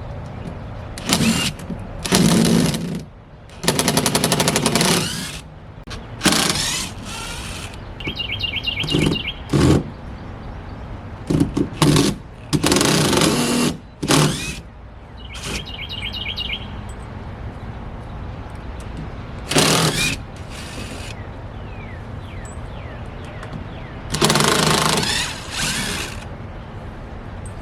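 A cordless power driver running in short bursts, about ten of them lasting a second or two each, as screws are backed out of the wooden framing of a makeshift porch enclosure.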